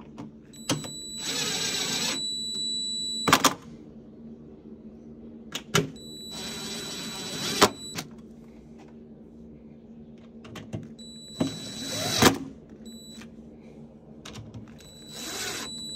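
Cordless drill/driver running in four short bursts as it drives the screws of a metal inverter cover, each run ending in a sharp click as the screw seats.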